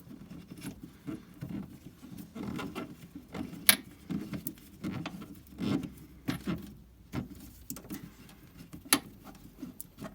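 Hand work on a brake master cylinder: scattered light clicks, taps and rustles as the brake pressure switch and its brake lines are handled, with two sharper clicks, about four seconds and about nine seconds in.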